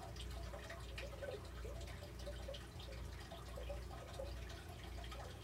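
Faint water dripping and trickling, many small plinks, over a low steady hum.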